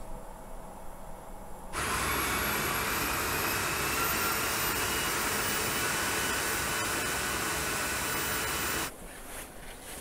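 Steady rushing noise of factory machinery, like a blower or turbine, with thin whines slowly rising in pitch. It starts abruptly about two seconds in and cuts off abruptly near the end, leaving a quieter room hum.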